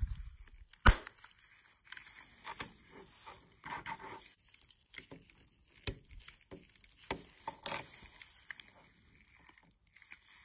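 Small clicks, taps and rustles of a plastic and metal H0 model railcar being handled and put back together with latex-gloved hands, with a sharp click about a second in.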